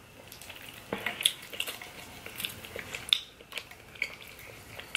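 Close-miked eating sounds of saucy lasagna pasta: irregular wet mouth smacks and clicks of chewing, mixed with a plastic fork working through the pasta on the baking sheet.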